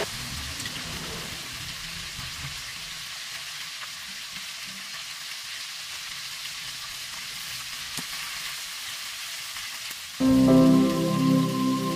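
Chicken pieces frying in butter and cooking oil in a nonstick wok, a steady sizzle. Background music comes in loudly about ten seconds in.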